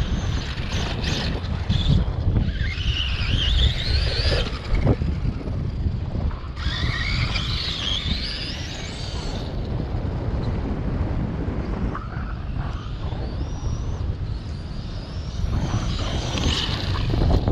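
Strong wind buffeting the microphone, with an electric RC car's brushless motor whining up and down in pitch in bursts as it accelerates: about two seconds in, again around seven seconds in, and near the end.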